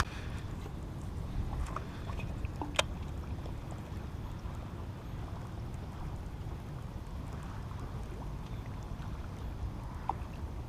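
Wind buffeting the camera microphone as a steady low rumble, with a few faint clicks.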